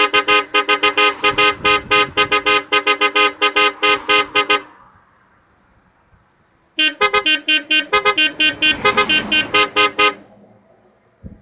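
Car horn driven by an electronic melody horn module, honking out a tune as a rapid string of short notes at changing pitches. It stops about four and a half seconds in, and after a pause of about two seconds a second tune starts and runs for about three seconds.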